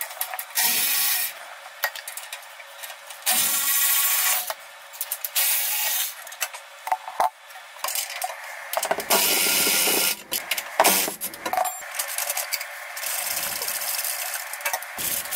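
A wrench working the exhaust clamp bolts at the X-pipe of a C5 Corvette's exhaust, heard as several separate spells of scraping, ratchet-like metal sound with clicks between them.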